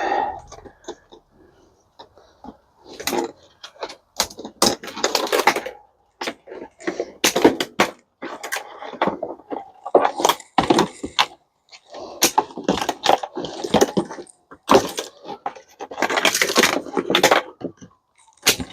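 Repeated sharp snaps, clicks and clattering of plastic and metal as a dishwasher's motor and wiring are cut and pulled apart for scrap. The sounds come in irregular bursts.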